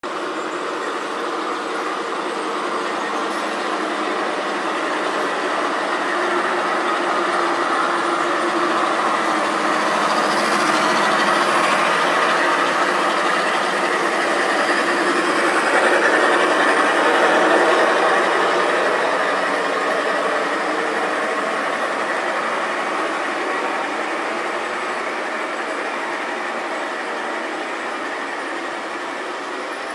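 Long G-scale model freight train running past on track laid over a wooden deck: a steady rolling rumble of wheels on rails. It grows louder to a peak a little past the middle as the train comes closest, then slowly fades.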